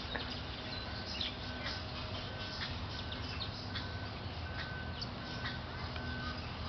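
Scattered bird chirps over a steady low background rumble, with a short, even note repeated about every 0.7 seconds.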